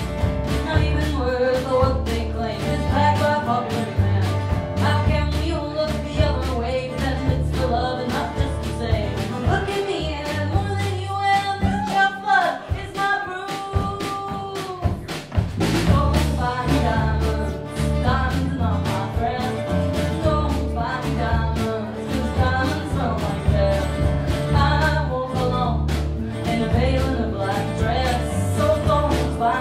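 Live song: a woman sings with strummed acoustic guitar, backed by upright double bass and drum kit. About halfway through, the bass and drums drop away for a few seconds under a held vocal note, then the full band comes back in.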